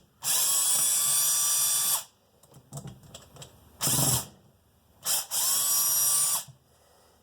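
Cordless drill with a Phillips bit run in two bursts of about two seconds and a second and a half, with a short blip between, each starting with a brief rise in motor whine before holding steady, backing out the screws of a YZ125 carburetor.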